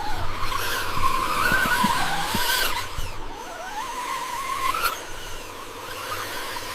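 Small electric motor of a radio-controlled vehicle whining, its pitch rising and falling with the throttle, over a rushing hiss.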